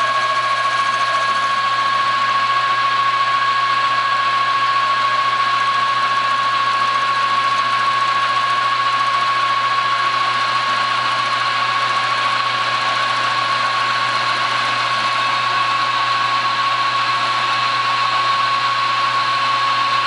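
Metal lathe running, spinning a Honda motorcycle crankcase clamped in its chuck as the case is bored out for a larger cylinder. It makes a steady high whine over a constant mechanical hum.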